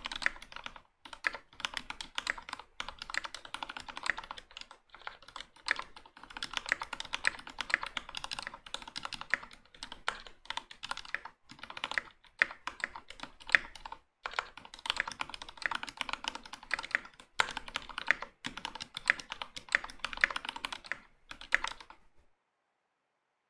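Typing on a Velocifiretech KK75 75% mechanical keyboard with an aluminium half plate and Gateron Ink Black linear switches: a fast run of key clacks in bursts with short pauses, stopping abruptly near the end.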